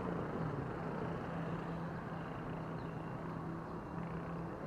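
A motor running steadily, heard as a low hum over a wash of outdoor traffic-like background noise.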